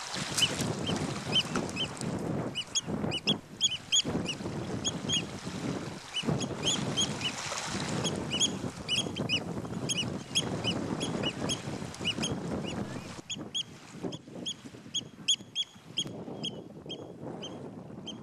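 Birds calling: short, high piping notes repeated about three a second in runs, over wind rumbling on the microphone. The calls thin out and stop near the end.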